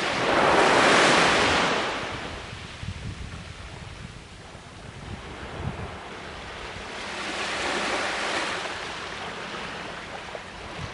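Small waves breaking and washing up on a sandy beach: two swells of surf, the louder about a second in and a softer one about seven seconds later, with wind buffeting the microphone.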